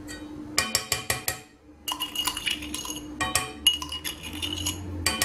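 Metal spoon scraping and tapping inside a drinking glass to knock the last sugar out into a saucepan: a run of quick, ringing clinks. One cluster comes a little over half a second in, then a short pause, then a denser run of clinks to the end.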